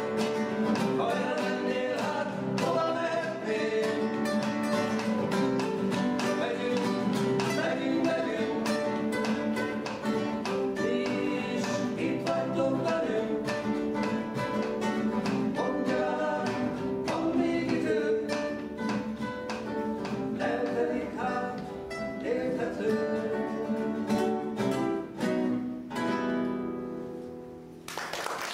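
Strummed acoustic guitar with singing, in a steady rhythm. The piece winds down and ends about a second before the close.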